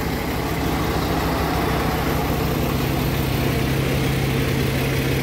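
Large vehicle engine idling with a steady low hum; the hum shifts to a lower, stronger tone about two seconds in.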